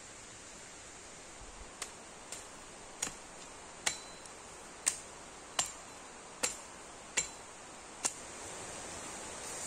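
Hatchet chopping at the base of a small dead conifer sapling: about nine sharp strikes, roughly one a second, starting about two seconds in, each with a short high ring.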